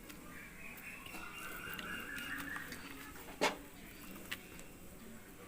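An animal's long, drawn-out call lasting about two seconds, then a single sharp knock about three and a half seconds in.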